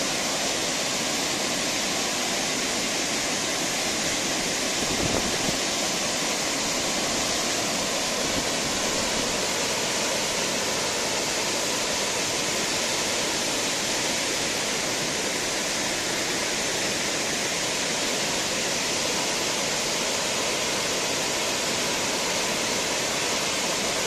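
A swollen waterfall carrying heavy muddy floodwater over a wide rock ledge, rushing steadily into a foaming pool.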